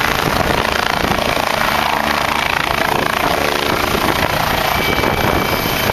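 Helicopter in flight, its engine and rotor running steadily under a heavy rush of wind on the microphone.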